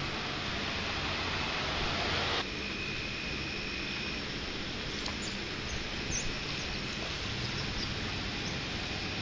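Steady rushing noise of water from a nearby dam, a little louder for the first two seconds or so, with a few faint high chirps about five to six and a half seconds in.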